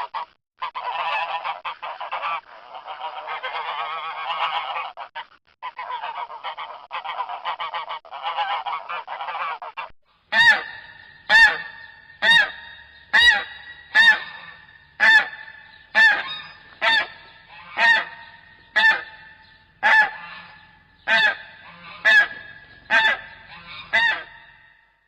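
Geese honking. For about the first ten seconds many geese call over one another in a dense flock chatter. Then comes a series of loud single honks, evenly spaced at about one a second.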